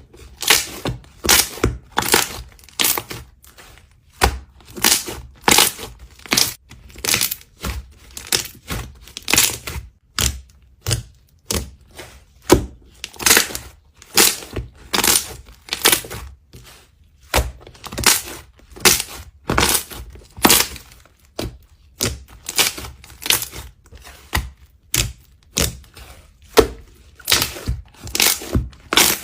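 Slime being squished and worked by hand, giving a steady run of short sticky clicks and pops, about two a second.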